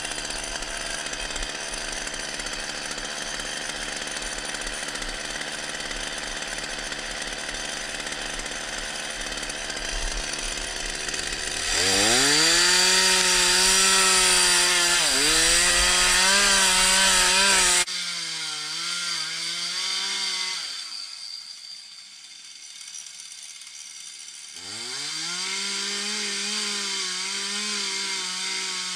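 Two-stroke chainsaw idling, then revved up to full throttle about twelve seconds in and held there cutting olive wood, its pitch dipping now and then. About eighteen seconds in the sound cuts abruptly to a quieter level, and the saw revs up again to full throttle a few seconds before the end.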